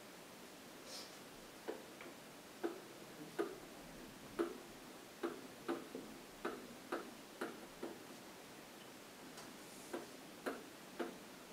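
Stylus tapping and clicking against the surface of an interactive whiteboard while letters are written by hand: short, sharp taps at uneven spacing, coming in quick runs as each letter is drawn.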